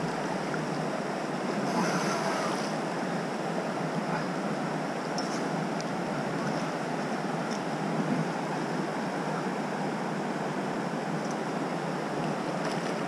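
Steady rushing noise of wind and river water.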